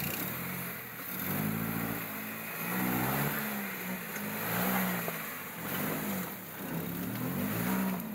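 Nissan X-Trail's 2.5-litre four-cylinder petrol engine revving up and falling back about five times under load as the 4x4 claws through deep mud. The spinning tyres churn and throw mud throughout.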